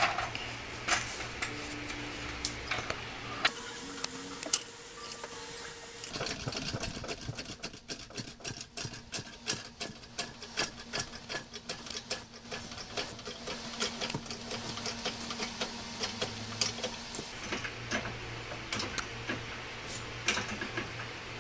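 Hydraulic floor jack being pumped by its long handle to lift a car: a quick, even run of loud clacks, about three a second, for some eight seconds. Lighter scattered clicks follow.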